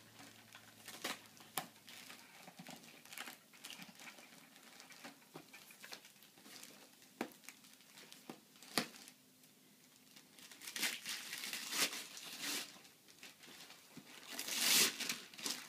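Christmas wrapping paper crinkling and tearing as a present is unwrapped by hand, in irregular crackles and rips that are busiest and loudest in the last few seconds.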